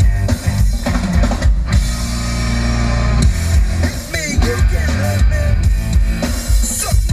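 Rock music with drum kit, heavy kick drum, bass and guitar, played through the Lexus RC 350's Mark Levinson audio system in the car.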